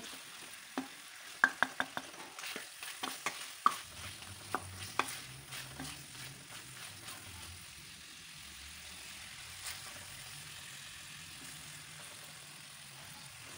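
Wooden spoon scraping and clicking against a metal karahi as chicken is stirred and fried in ghee, over a faint steady sizzle. The stirring stops about halfway through, leaving only the sizzle.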